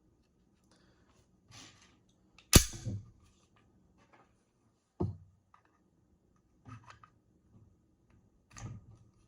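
Handling of an unloaded SIG P320 pistol: a sharp clack about two and a half seconds in and another about five seconds in, with softer clicks and rustles between.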